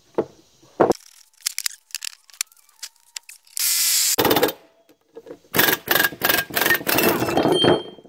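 Impact wrench driving the screw of an OTC C-frame ball joint press in short bursts of rapid hammering with a motor whine, pressing a new ball joint into a steering knuckle. Sharp metal clicks come first, as the press pieces are fitted.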